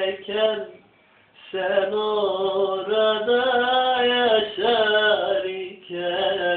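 A man singing solo in long, held, wavering phrases, with a breath pause about a second in.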